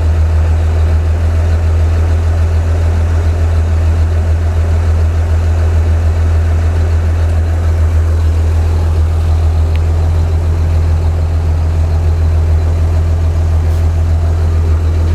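A WWII military truck's warm engine idling steadily after a push-button start, with a deep, even hum.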